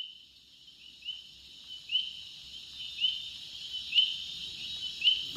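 Insects chirping: a steady high buzz with a short, louder chirp about once a second.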